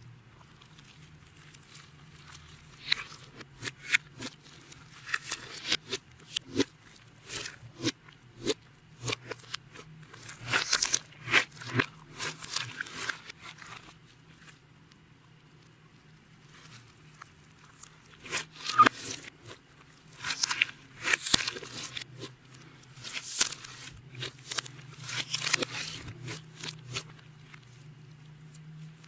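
Clear slime being kneaded and squished by hand with eyeshadow and glitter mixed in, giving rapid sticky clicks and pops in two spells with a pause of a few seconds between them. A faint steady low hum runs underneath.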